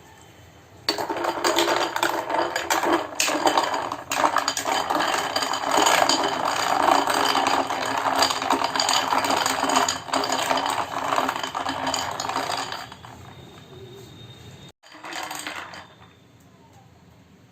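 Ice cubes rattling and being crushed in a kitchen mixer jar as the mixer runs, a loud, dense clatter. It starts abruptly about a second in, goes for about twelve seconds, then stops, leaving a little weaker rattling.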